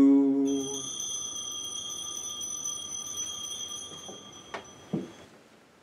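A bell struck once at the elevation of the consecrated host, ringing with a clear, high tone that fades slowly. Two light knocks come near the end.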